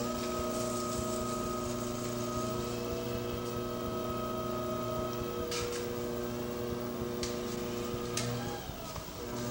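Potter's wheel motor running with a steady electric whine while clay is thrown, the whine dipping briefly near the end; a few faint clicks about halfway through.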